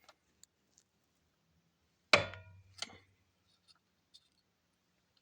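Hyundai ix35's steering column shaft knocking in the column as its play is worked by hand: a few faint clicks, then one loud ringing metallic knock about two seconds in and a lighter one just after. The shaft's free play in the column is the source of the steering knock, not the universal joint.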